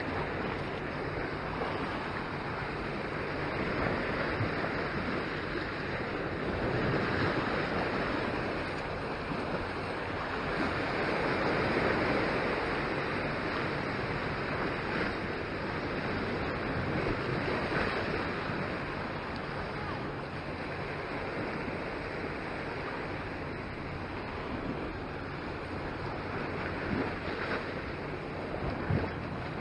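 Sea waves and strong wind buffeting the microphone: a steady rushing noise that swells and eases every few seconds.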